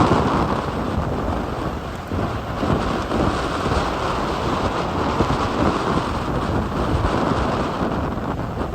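Strong gale-force wind buffeting the microphone in a continuous heavy rushing rumble, over the sound of the sea.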